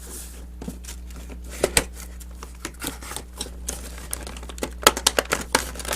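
Cardboard-and-plastic action-figure packaging being handled and opened: scattered clicks, taps and crinkles, with a quick run of sharper clicks about five seconds in.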